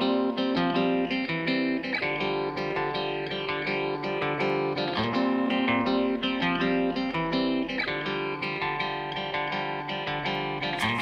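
Background music led by plucked guitar, steady rhythmic notes.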